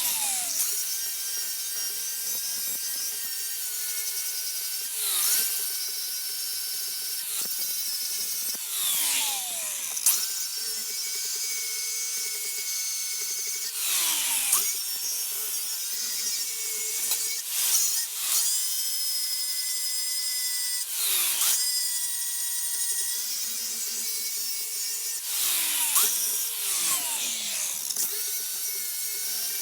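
A small power tool's motor running at a steady pitch. Every few seconds it bears down on the workpiece with a rasping grind, and its pitch sags under the load before picking up again.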